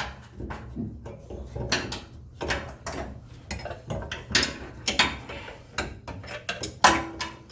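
Ratchet wrench tightening loosened bolts: quick irregular clicking with scattered metal clanks, and one louder ringing clank near the end.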